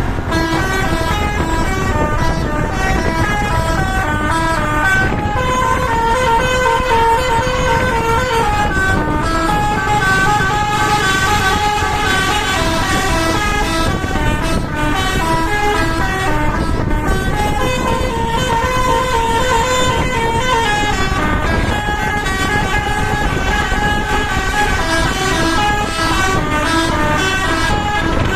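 Bus telolet horn (Basuri multi-tone electric horn) playing a long, loud melody of held notes that step up and down and repeat as a looping tune, with the bus's engine rumbling beneath.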